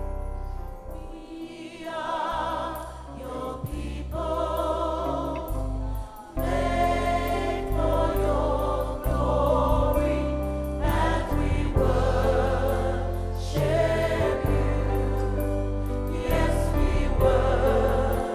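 Gospel choir singing a praise song with a live band: drum kit with crash cymbals and a strong bass line under the voices. The music grows fuller and louder about six seconds in.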